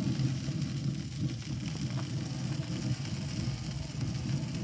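Pellet Pro pellet grill running with its lid open, its combustion fan and fire making a steady low rumble.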